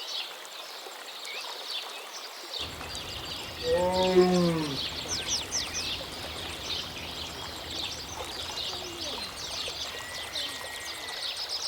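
Wild birds chirping throughout, with one drawn-out animal call about four seconds in that rises and falls in pitch over about a second.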